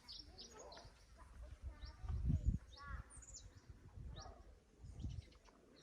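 Small birds chirping in quick, short high notes, with a low rumble about two seconds in.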